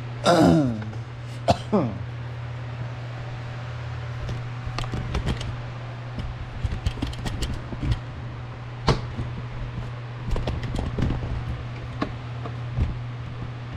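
Scattered clicks, knocks and rattles of objects being handled and set down on a workbench, with two short falling squeaks near the start, over a steady low hum.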